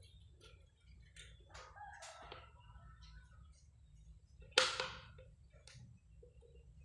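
Chickens calling, with one sudden sharp loud sound about four and a half seconds in that dies away within half a second.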